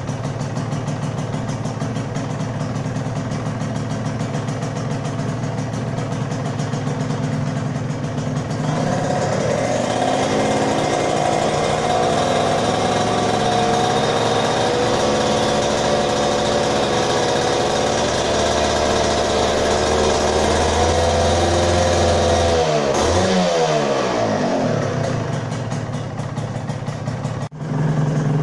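Yamaha TZM 150's two-stroke single-cylinder engine idling, then held at a raised, steady rev for about thirteen seconds before falling back to idle. The engine is freshly overhauled and being run gently, without high revs, on its first start after sitting ten years.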